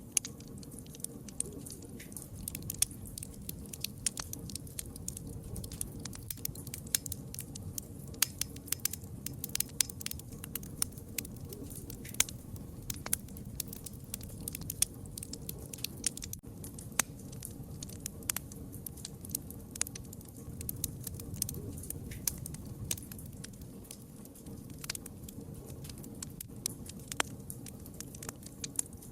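Wood fire crackling: frequent, irregular sharp pops and snaps over a low, steady background of burning.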